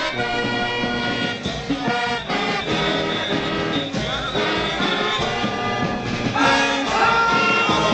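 Brass band music playing, with horns such as trumpets and trombones holding and changing notes over a steady beat.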